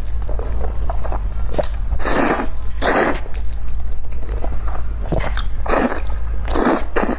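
Close-miked mouth sounds of a person eating: wet chewing and small clicks, broken by five louder noisy bursts of biting, each under half a second long.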